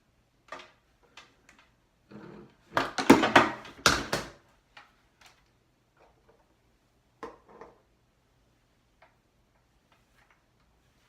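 Light clicks and handling noises from hair-styling tools worked through the hair, with a louder run of quick strokes about three seconds in.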